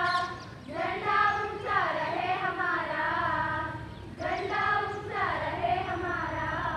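A group of voices singing together in unison, in long drawn-out phrases with held notes and a brief breath between phrases.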